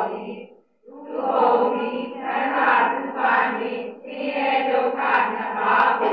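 A class of women reading a Burmese Abhidhamma lesson aloud in unison, phrase by phrase, with a brief break just under a second in.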